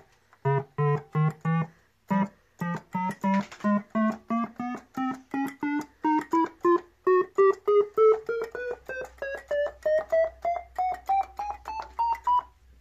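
EKO Tivoli 18A electronic organ played one key at a time up the keyboard: short separate notes, about three a second, stepping steadily upward in pitch over roughly two octaves, with each key sounding.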